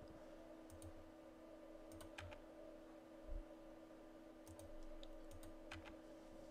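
Faint clicks of a computer keyboard and mouse in a few small clusters, over a steady low electrical hum.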